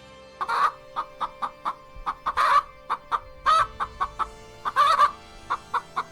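Domestic chicken clucking: a series of short clucks with a few longer, louder calls.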